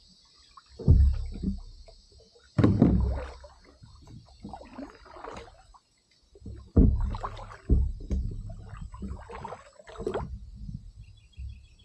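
Handling noise in a kayak close to the microphone: several heavy thumps, each followed by rubbing and scraping, as gear is shifted about in the boat.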